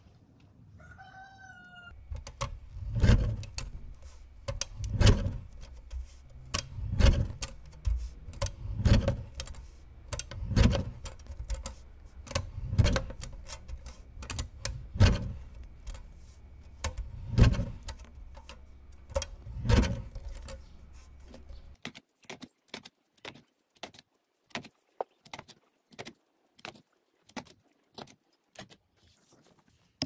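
A guillotine paper cutter's blade chopping through a bundle of straws, one heavy chop about every two seconds. Before it there is a short call, and after it a fast run of light clicks, about three a second.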